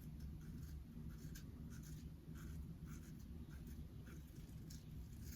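Shavette-style straight razor with a disposable blade scraping through stubble in short, faint, irregular strokes, over a low steady room hum.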